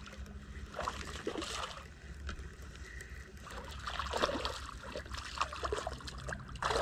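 Irregular small water splashes and trickling at the lake surface from a hooked largemouth bass thrashing and jumping as it is reeled in.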